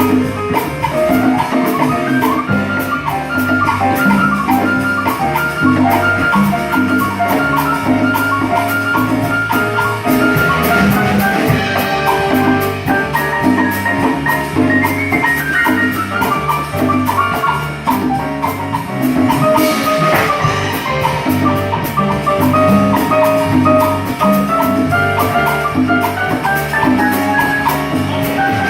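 Live band music with a steady drum beat and a melody of short, bright notes.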